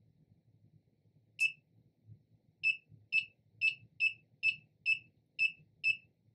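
Digital control panel of a Wala auto-open hat heat press beeping as the down button is tapped: one short high beep, then a steady run of about two beeps a second. Each beep marks one press stepping the set temperature down a degree toward 380.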